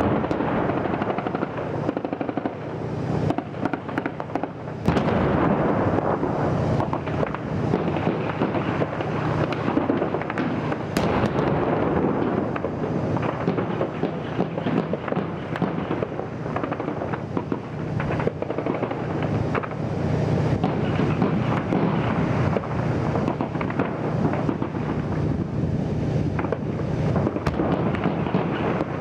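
Heavy firefight under shelling: a dense crackle of gunfire with shots coming many times a second and the dull blasts of shell impacts, one loud blast about five seconds in.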